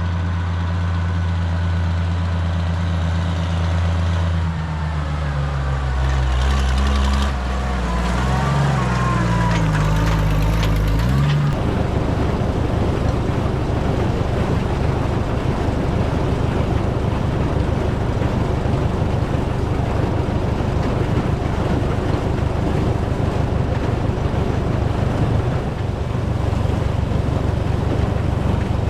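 Tractor engine running steadily, its pitch wavering up and down about eight to eleven seconds in. From about eleven seconds on, the drone gives way to a dense, rapid rattling clatter of farm machinery over a low engine hum.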